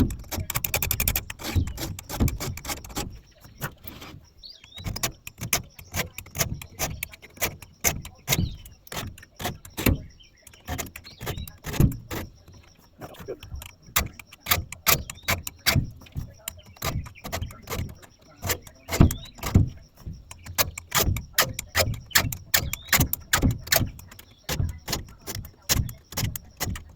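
Saw chain of a WEN electric chainsaw being sharpened: quick, irregular scraping strokes, several a second, with short pauses between runs of strokes.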